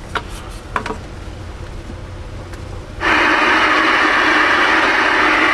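Two faint clicks, then about three seconds in a radio speaker bursts into loud, steady static hiss that holds on.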